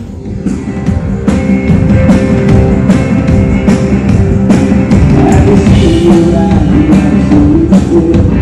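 Rock band playing live, with a drum kit keeping a steady beat under sustained instruments.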